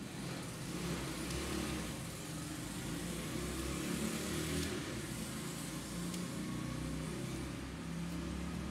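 A motor engine running steadily, its low hum shifting a little in pitch now and then.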